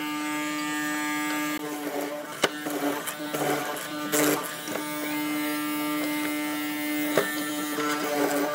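Hollow-chisel mortiser's electric motor running with a steady buzz while its square chisel is plunged into a wooden rail, with a few sharp knocks and short rasps of cutting as the chisel bites in.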